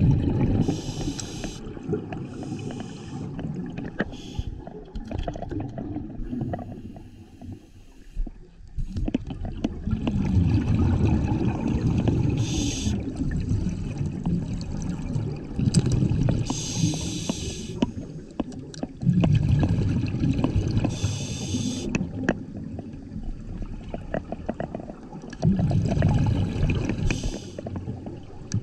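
Scuba diver breathing through a regulator underwater: a short high hiss on each inhale and a low bubbling rumble of exhaled bubbles, about six breaths.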